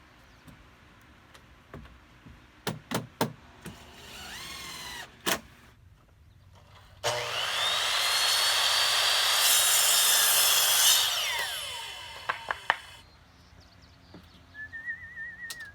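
Power saw cutting a composite deck board: the motor spins up with a rising whine, the blade cuts for about four seconds, then the saw winds down. A few sharp knocks come before it.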